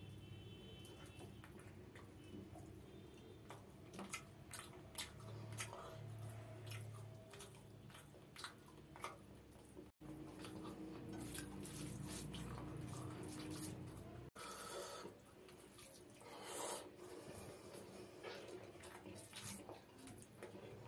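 Close-miked wet eating sounds: fingers squelching rice into mustard fish gravy on a plate, and chewing with moist mouth smacks. It comes as an uneven run of small sticky clicks.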